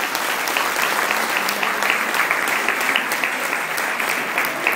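An audience applauding, many hands clapping in a dense, steady round.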